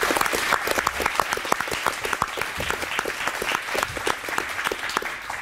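Applause, with the seated panelists among those clapping: many quick overlapping claps that keep up steadily and taper off near the end.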